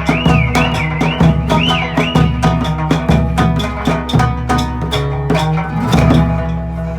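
Live Okinawan folk music: plucked strings and drum playing a quick rhythm, with a warbling high whistle over it for the first two seconds or so.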